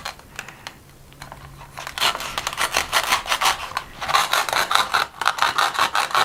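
Velcro halves of a toy fruit set's apple torn apart as the toy knife cuts through them. The velcro gives a rasping rip made of many quick crackles, starting about two seconds in and going on to the end.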